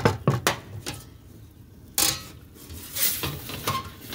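Metal pizza peel knocking and clinking on a stainless steel work table, with one sharp clank about two seconds in. It then scrapes as it slides into the pizza oven under the pizza.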